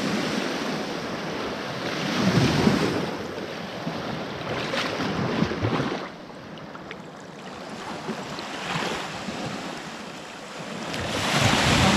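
Small waves washing and breaking in the shallow shoreline surf, swelling and fading in surges, loudest about two and a half seconds in and again near the end.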